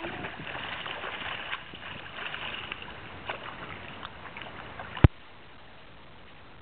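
Water splashing from a snorkeler's fin kicks at the surface, with scattered small clicks. A single sharp knock comes about five seconds in, and the splashing stops there.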